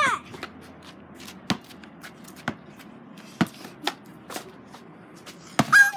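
A few separate sharp taps and knocks, roughly a second apart, over a low background, then a child's loud high shout near the end.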